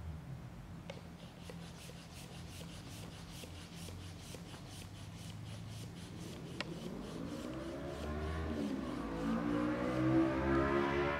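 Rubber squeaking and creaking of a modelling balloon shifting against sand. It wavers up and down in pitch and grows louder towards the end, after a stretch of faint, rapid ticking.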